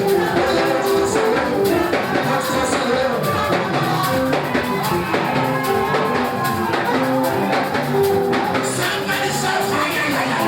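Live church band music with a drum kit keeping a steady beat under sustained pitched chords.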